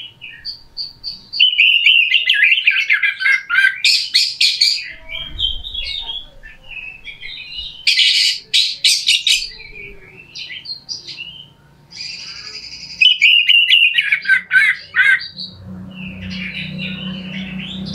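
Oriental magpie-robin (kacer) singing a harsh-style song: varied rapid whistled phrases mixed with raspy, buzzy chatter, delivered in bursts with short pauses. A faint low hum joins in the last few seconds.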